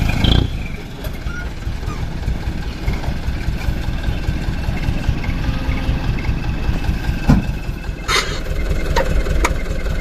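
Mitsubishi Canter HDX dump truck's diesel engine running with a steady low rumble, with a thump about seven seconds in and a brief hiss just after eight seconds.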